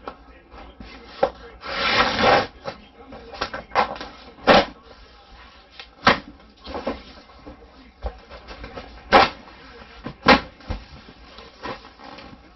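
Cardboard box and packing being handled while unpacking: a rustle about two seconds in and several sharp knocks and bumps.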